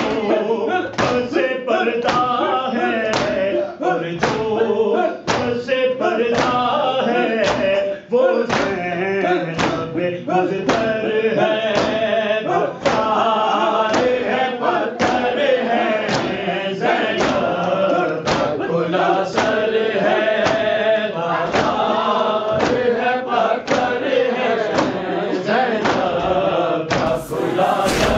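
Urdu noha chanted by male voices with a group joining in, over a steady beat of sharp strikes, the matam (hand strikes on the chest) that keeps time with the noha.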